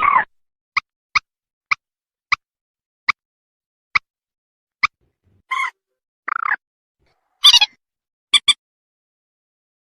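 Mandar (rail) call played as a hunting lure: a series of short, sharp, ringing notes, roughly one every half second to second, broken by a few longer, harsher notes in the middle and a quick double note near the end.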